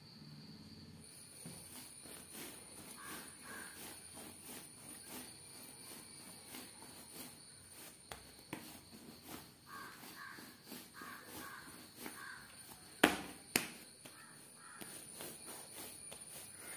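Hands kneading and pressing soft wheat parotta dough on a stone countertop: faint, irregular soft pats and slaps. Two sharp knocks come about 13 seconds in, half a second apart.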